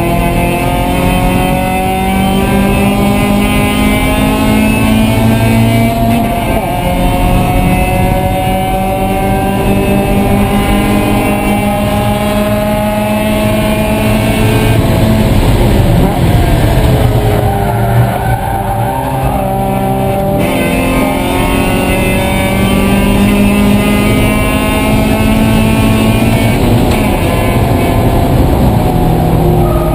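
Mazda Miata race car's four-cylinder engine heard from inside the cabin, pulling hard, its pitch climbing slowly for about fourteen seconds. The pitch then drops as the driver lifts and shifts down, and climbs again on the next pull before falling once more near the end.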